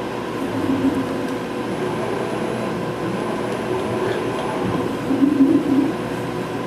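Romi M17 CNC lathe running with a steady mechanical hum. Two short low whirs, about half a second in and again about five seconds in, as the slides are jogged by handwheel.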